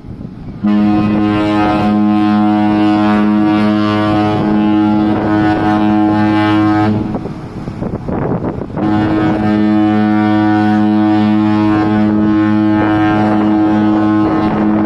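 Cruise ship AIDAmar's horn sounding two long, deep, steady blasts of about six seconds each, with a short pause between them.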